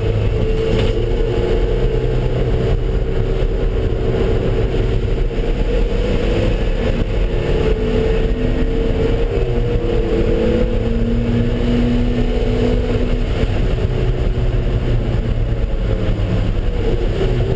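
Car engine running at speed around a race track, its pitch rising and falling a little with throttle, over steady heavy road noise.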